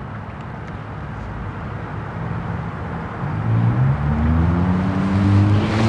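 Outdoor background noise, then about three seconds in a motor vehicle's engine comes up, its pitch rising slowly and steadily as it gets louder, as it accelerates.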